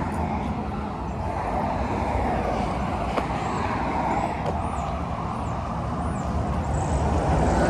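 Steady road traffic noise, tyre and engine hum, swelling a little near the end as a vehicle passes, with a few faint high chirps.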